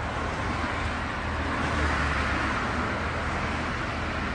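Steady road noise of a moving vehicle: tyre hiss over a low engine rumble, swelling slightly about two seconds in.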